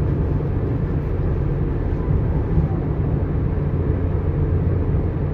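Steady engine and road noise of a vehicle under way, a constant low rumble with no change in pace.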